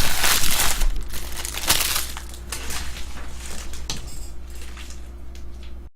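Trading-card pack wrappers and packaging crinkling and rustling as they are handled. The crinkling is dense for about the first second, then breaks into scattered crackles and clicks that grow quieter.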